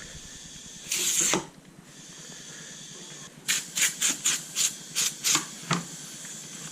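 Aerosol can of silicone lubricant spraying: one spray of about half a second about a second in, then a quick run of about eight short spritzes.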